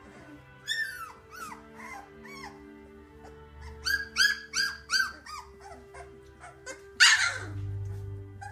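Two-week-old Labrador puppies squeaking and whimpering: many short, high cries that rise and fall, with a run of four loud ones about four seconds in. A loud, harsh sound falling in pitch comes about seven seconds in.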